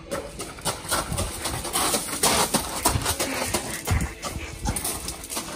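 Running footsteps crunching and scuffing on a gravel path, uneven thumps with a louder stretch of crunching about two seconds in.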